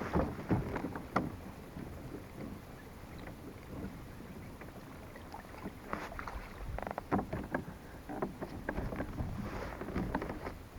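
Strong wind buffeting the microphone as a low rumble, with irregular knocks and clatter, busiest near the start and again in the second half.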